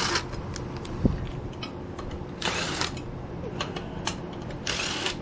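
Impact wrench firing in three short bursts of about half a second each, backing out the front brake rotor bolts, with small metallic clicks between the bursts.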